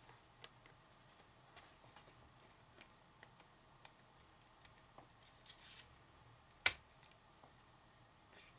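Faint, scattered small clicks and taps of plastic fischertechnik parts being handled against a perforated plastic building plate, with one sharper click about two-thirds of the way through.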